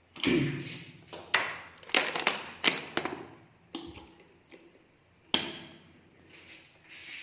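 Kitchen utensils and a sandwich griller being handled: about ten uneven knocks, taps and clinks, with some short ringing, the loudest in the first three seconds.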